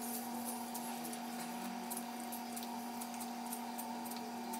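Peeler scraping the skin off a raw yam in short strokes, heard as faint quick clicks that come faster near the end, over a steady hum.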